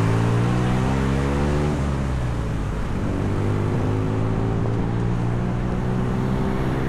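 Road vehicle engine accelerating: its note climbs, breaks off about two seconds in, then climbs again, as in a shift up through the gears.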